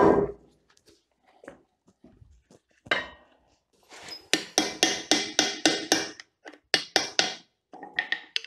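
Hand hammer striking a steel punch held against the old Leinen 150F bench vise while it is being taken apart. There is a single blow near three seconds, then a quick even run of ringing metal strikes about three a second from around four seconds in, and a few more blows near the end.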